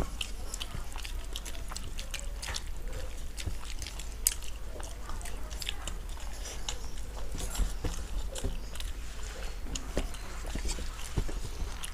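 Close-up eating sounds: chewing and lip smacking, and fingers mixing rice on steel plates, with bites into fried brinjal pakoras. Many small clicks are scattered throughout over a steady low hum.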